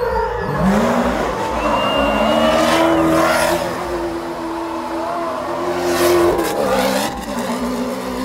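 Rally buggy spinning donuts: its engine revs up and is held at high revs, with tyres squealing and screeching on the asphalt in surges about three seconds and six seconds in. The revs drop away near the end.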